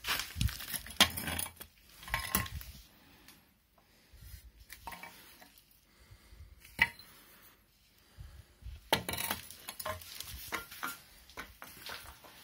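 Metal moped exhaust pipe handled on a concrete floor: irregular clinks, knocks and scrapes. They come in two busy stretches, at the start and again near the end, with a single sharp knock in between.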